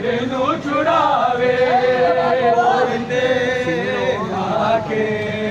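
Men's voices chanting a Punjabi noha, a Shia lament, in long held notes that bend up and down in pitch.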